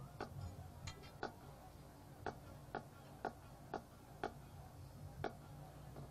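Faint, sharp percussion clicks keeping a steady beat, about two a second with a few beats left out, over a low steady hum.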